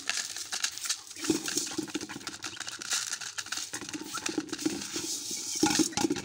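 Several chickens pecking grain from a plastic plate: a rapid, uneven tapping of beaks on the plastic, with soft low clucking coming and going.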